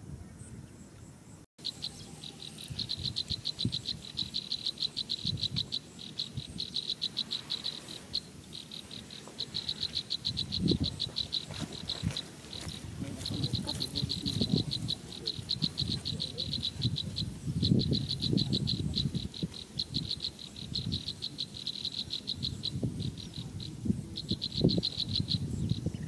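Rapid high-pitched trilling calls, each a quick train of pulses, repeating in bursts of one to several seconds with short gaps, over irregular low rustling and bumps.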